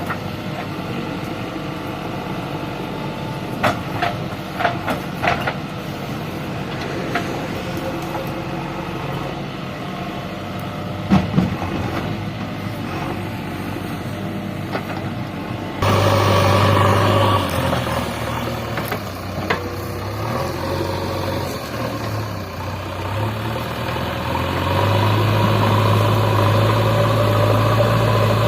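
Diesel engine of a JCB 3DX backhoe loader running, with a few sharp knocks in the first half. About halfway through it gets suddenly louder and deeper, and it grows louder again near the end.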